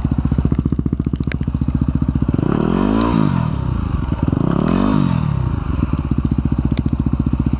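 Yamaha WR250R's 250 cc single-cylinder four-stroke engine running at a steady low thump, revved up and back down twice, around two and a half seconds in and again near five seconds, as the bike struggles to move through deep snow.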